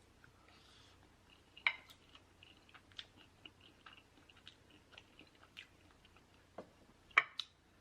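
Close-miked chewing and wet mouth sounds of a person eating, with many small clicks and a sharper click about a second and a half in and another near the end.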